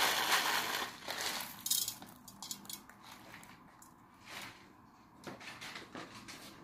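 Brief rustling in the first second, then whole black peppercorns dropped by hand into an aluminium pot of raw lamb, landing as scattered light ticks and clicks on the meat and the pot.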